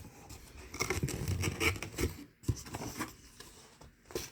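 A cardboard shipping box and its packing being handled and opened: irregular scraping and rustling with a few sharp knocks.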